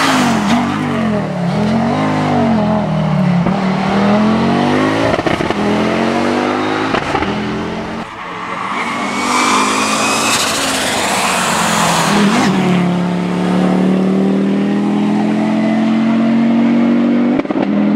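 Audi Quattro A2 Group B rally car's turbocharged five-cylinder engine at racing speed. Its pitch swings sharply up and down through gear changes at first, drops away briefly about eight seconds in, then comes back louder. For the last five seconds it settles into one long, slowly rising pull.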